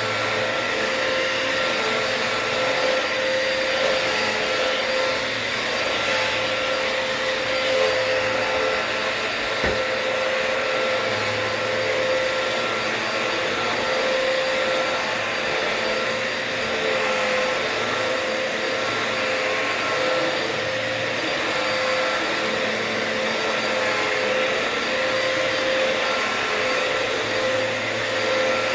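Dirt Devil Multi-Surface Rewind upright vacuum cleaner running steadily in bare floor mode while vacuuming a hard floor: an even rush of air with a steady hum from the motor.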